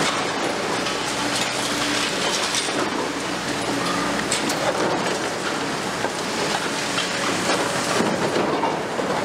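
Liebherr R 950 Demolition excavator working a building with its long-reach demolition front: the machine's engine and hydraulics run steadily under a constant crackle of concrete breaking and rubble falling.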